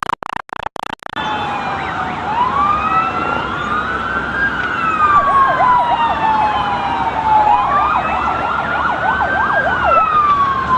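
Several emergency-vehicle sirens sounding at once, overlapping slow rising and falling wails with two stretches of fast yelping warble. In the first second the sound cuts in and out repeatedly.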